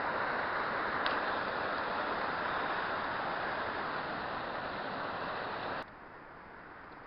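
Waterfall rushing, a steady loud noise of falling water that drops away suddenly about six seconds in to a fainter rush. A small click about a second in.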